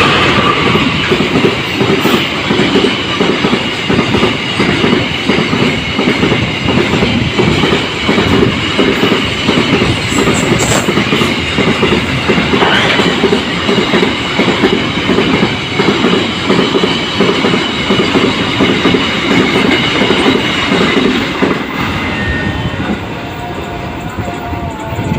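Passenger train carriages rolling past at speed, their wheels clattering steadily and rhythmically over the rail joints, with a thin steady high whine over the clatter. The clatter eases a little near the end.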